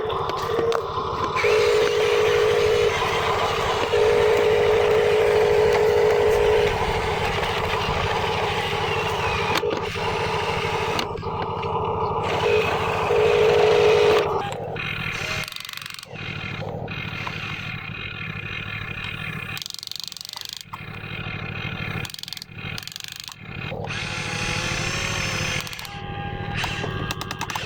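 Radio-controlled construction models running: a steady low machine hum, with a higher steady tone that sounds three times in the first half of the stretch and abrupt changes later on.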